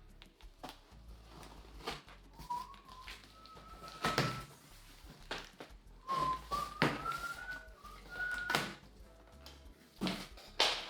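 A person whistling a few short notes, some held and some sliding upward, with several sharp knocks from things being handled in between.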